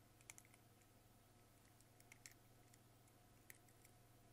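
A handful of faint, scattered clicks of small plastic parts as the arms of a DT71 mini-tweezers tester are handled and fitted together, over a faint steady hum.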